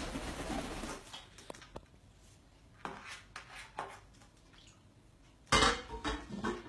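Scattered light knocks and clatter of hard household objects, like dishes being handled: a few small taps around the middle, then a louder half-second clatter about five and a half seconds in.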